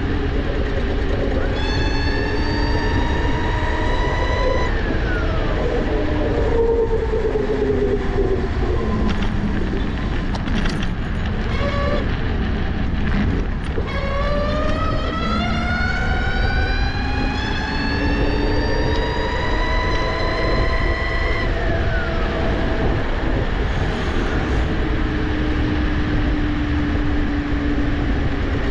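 Fiido Q1 electric scooter's stock brushless motor, driven through a 48/72 V controller and step-up module, whining under throttle. Twice the whine climbs steadily in pitch as the scooter speeds up, then drops away quickly when the throttle is eased. A steady low rumble of wind on the microphone runs underneath.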